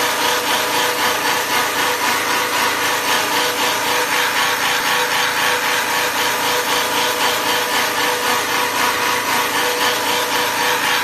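Automatic pickaxe-handle shaping machine, its spinning cutter head milling a wooden handle blank: a loud, steady wood-cutting noise with a high whine and a fast, even pulsing.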